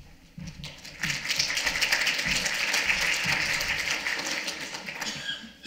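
Audience applause: it starts about a second in, holds steady, and tapers off near the end.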